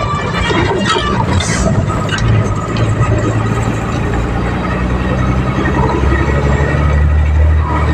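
Road vehicle noise: engine and tyre rumble, with a deep engine drone that builds from about halfway and is loudest just before it drops away abruptly at the end.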